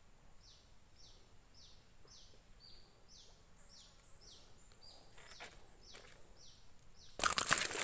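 A bird calling over and over with a short, high, falling note, about two to three times a second. Near the end comes a sudden loud burst of rustling and knocking: handling noise against the microphone.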